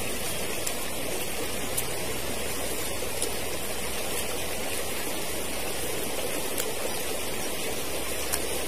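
Forest stream flowing steadily, a constant rush of water.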